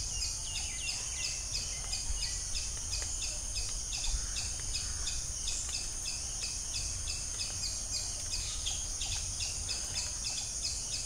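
Background ambience of chirping insects and birds: a steady high-pitched drone with rapid repeated chirps, about three or four a second.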